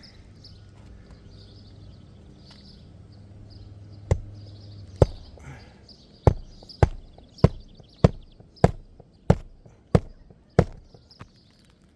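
Hammer striking a roofing nail to fasten a replacement roof shingle: two separate blows, then a steady run of about eight sharp strikes, a little over one and a half a second.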